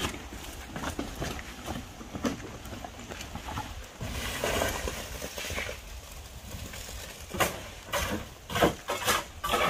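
Wheelbarrow loaded with wet concrete mix rattling over rough, stony ground, with small knocks and clatters. Near the end, as the barrow is tipped into the foundation trench, a run of loud, sharp knocks comes about twice a second.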